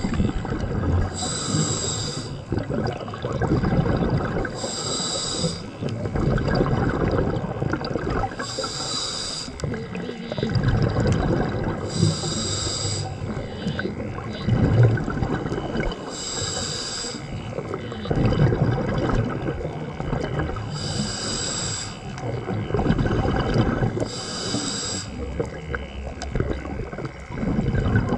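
A scuba diver breathing through a regulator underwater. About every three to four seconds there is a short hiss of an inhalation, and a low, bubbly rumble of exhaled bubbles fills the time between breaths.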